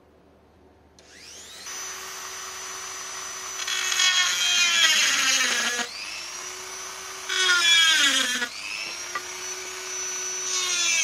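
Small high-speed electric drill whining as it spins up about a second in. Three times its pitch sags as it bogs down under load, and it stops and spins up again after each of the first two.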